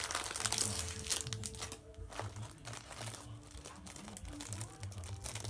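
Plastic squishy packaging crinkling as a squishy is pushed back into it, busiest for the first couple of seconds and then softer and more scattered.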